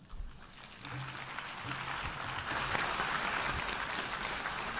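Audience of assembly delegates applauding at the end of a speech, starting up about a second in, then swelling and holding steady.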